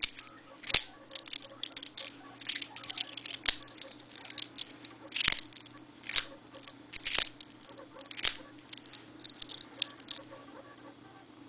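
Small balisong (butterfly knife) with G10 handles being flipped by hand: irregular light clicks and clacks of the handles swinging about their pivots and striking the blade's tang, with a sharper clack roughly every second, stopping near the end.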